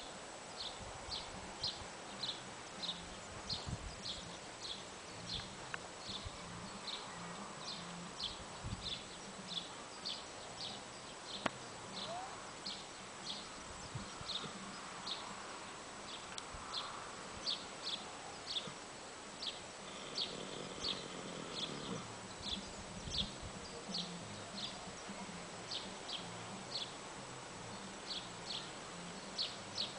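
Horse snoring softly in its sleep, with short high chirps repeating at about two a second throughout.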